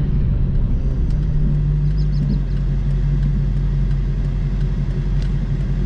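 2014 Dodge Challenger R/T's 5.7-litre HEMI V8 running steadily with a low, even drone, heard from inside the cabin.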